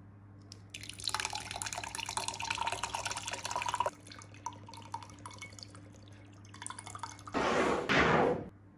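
Milk poured into drinking glasses, a splashing pour into glass for about three seconds and then a quieter stretch. Near the end comes a louder rushing noise of about a second.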